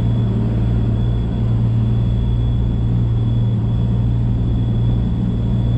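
Rotax 4-TEC three-cylinder four-stroke jet-boat engine running at a steady low throttle, its jet pump turning water with the reverse bucket down.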